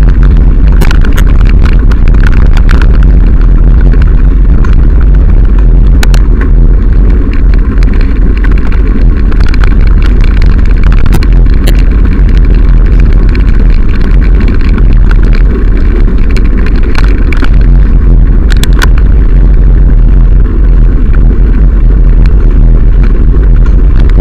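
Heavy wind buffeting on the microphone of a camera riding along on a bicycle, with the rumble of tyres on a gravel path and scattered sharp rattling clicks from the bike.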